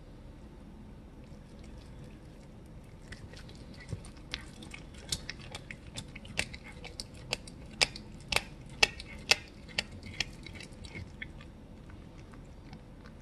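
Domestic cat chewing and crunching a raw chicken leg: sharp crunches, sparse at first, coming thick and loudest through the middle, then thinning out near the end.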